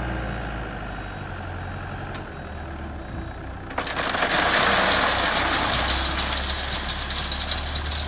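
Caterpillar 906 compact wheel loader's diesel engine running. About four seconds in, gravel begins to pour from its tipped bucket into a small trailer, a loud rushing rattle over the engine.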